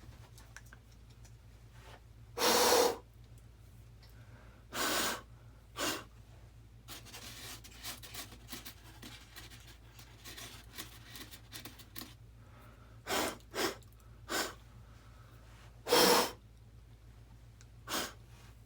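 Short, sharp puffs of breath blowing foam shavings off a model, about eight in all, the loudest about two and a half seconds in and near the end. Faint scraping and ticking of hand-carving foam in between.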